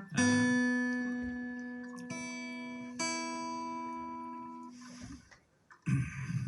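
Acoustic guitar notes plucked and left to ring out: one at the start, more about two and three seconds in, fading away by about five seconds. A brief noisy rustle follows near the end.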